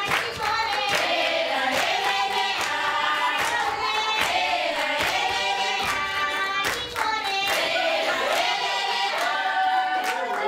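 A group of schoolchildren singing together in chorus, with hand claps sharply marking the song.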